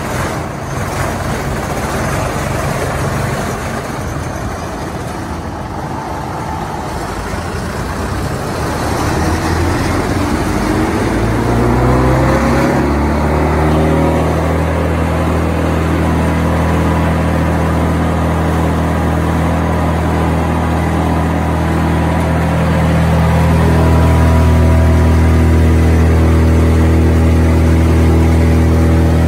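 Morbark Tornado 15 wood chipper's engine running, then revving up with a rising pitch about a third of the way in and settling into a steady high-speed run with no wood being fed. It gets a little louder and fuller near the end.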